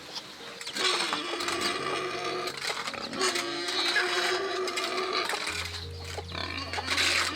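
Pigs squealing over background music.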